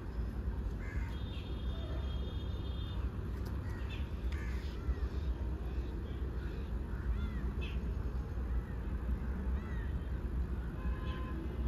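Birds, crows among them, calling again and again outdoors, short arched calls scattered through, over a steady low rumble.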